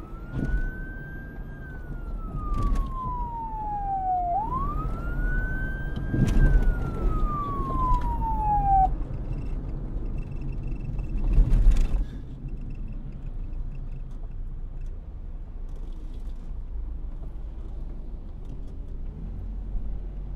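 Emergency vehicle siren wailing in two slow rises and falls, then stopping about nine seconds in. A steady low rumble runs underneath, with a loud rush near twelve seconds.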